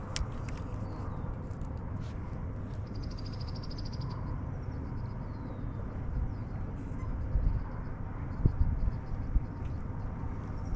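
Outdoor ambience: a steady low rumble of wind on the microphone, with faint high bird chirps, a short high pulsing buzz a few seconds in, and a few light knocks later on.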